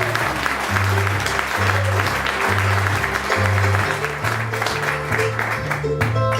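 Bluegrass band of guitar, mandolin, banjo and upright bass playing an instrumental break, the bass walking back and forth between two low notes, with audience applause over it that thins near the end.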